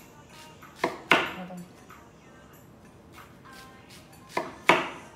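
Chef's knife slicing through a whole onion onto a wooden cutting board: two pairs of sharp knocks, one about a second in and another near the end, the second knock of each pair the louder.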